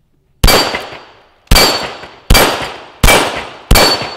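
Five pistol shots from a CZ vz.38 (Model 39) .380 ACP double-action-only handgun, fired at an uneven pace roughly a second apart or less. A high metallic ping rings after most shots as the bullets strike steel plate targets.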